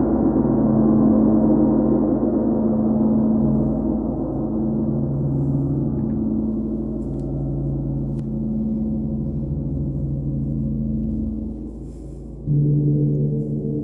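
Gongs ringing with a long, slowly pulsing hum that gradually fades. About twelve and a half seconds in, a large gong is struck with a soft mallet and a fresh, deeper ring swells in.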